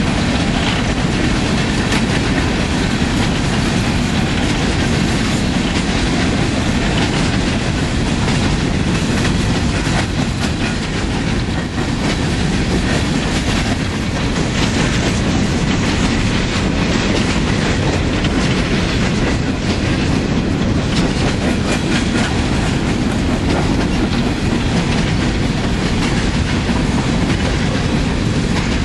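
Union Pacific coal train's hopper cars rolling steadily past, a continuous rumble and clatter of steel wheels on the rails.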